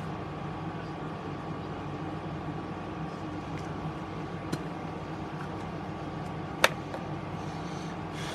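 Steady mechanical room hum with a constant tone in it. A single sharp click comes about six and a half seconds in, with a fainter click a couple of seconds earlier.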